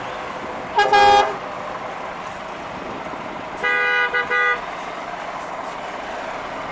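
Truck horns sounding: one short blast about a second in, then a few seconds later another horn given in three quick toots, one longer and two short. The horns carry several tones at once.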